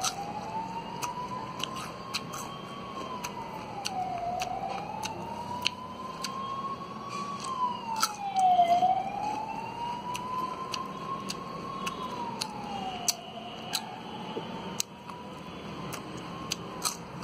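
A siren wailing, rising slowly and dropping back about every four seconds, with scattered sharp crunching clicks of raw turmeric root being bitten and chewed.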